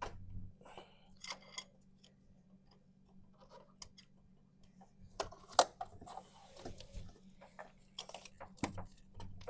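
Scattered metal clicks and scrapes of a long screwdriver probing down the distributor bore of a 4.3L Vortec V6, trying to catch and turn the oil pump drive shaft, with one sharp click about five and a half seconds in. A faint steady low hum runs underneath.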